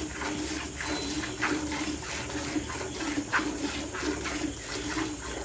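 A cow being hand-milked: streams of milk squirting into a steel bucket that is partly full of frothy milk, in a steady rhythm.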